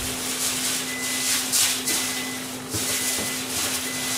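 Chicken liver sizzling and spitting as it grills on a wire net, over a steady low hum, with a faint high tone that comes and goes about once a second.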